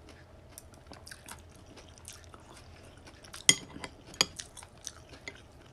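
Chopsticks and a ceramic soup spoon tapping against a bowl: faint scattered clicks, with two sharp clinks, one about three and a half seconds in and another about a second later.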